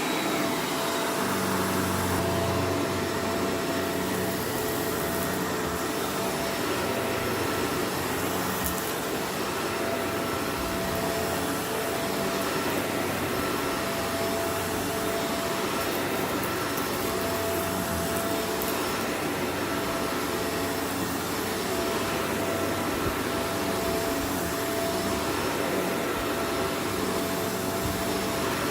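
Vacuum cleaner running steadily with an even motor whine, sucking up spread-out dirt.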